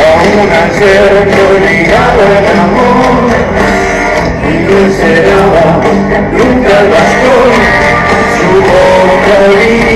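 Live rock music with singing and guitar over a concert PA, heard from far back in a large open-air audience; it plays loud and without a break.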